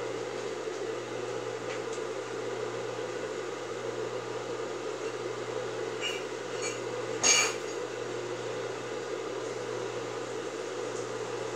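Steady electric hum of a motor or fan. Cloth is handled over it, with a few faint ticks and one brief, sharp, louder noise a little past the middle.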